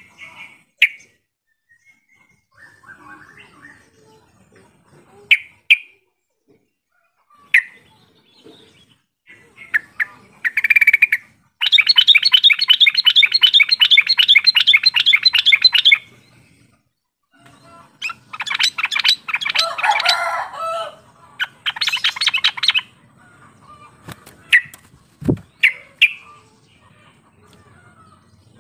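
Yellow-vented bulbul calling: a few short chirps, then a long, rapid, bubbly chattering song lasting about four seconds near the middle, followed by two more bursts of chatter and scattered chirps.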